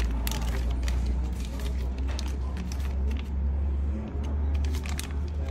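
Clear plastic zip bag crinkling and rustling as it is opened and handled, in quick crackly clicks, over a steady low rumble.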